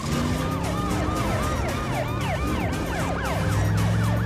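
Emergency-vehicle sirens wailing fast, each sweep rising and falling about three times a second, with a second siren joining about two seconds in. A steady low drone runs underneath and grows louder near the end.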